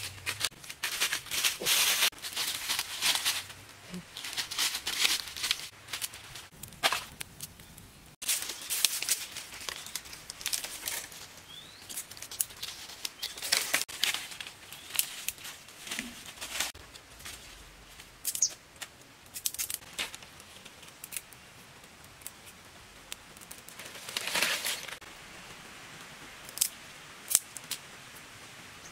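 Dry leaves and twigs rustling and crackling in irregular bursts, as bare feet tread through leaf litter and sticks are handled.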